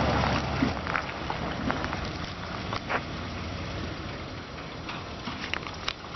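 1936 Ford pickup's flathead V8 engine running, its sound dropping to a fainter, steady noise just after the start, with a few scattered short clicks.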